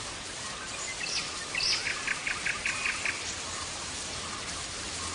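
A bird calls about a second in: a couple of short upward whistles, then a quick run of about seven evenly spaced chirps. It sounds over a steady hiss like light rain.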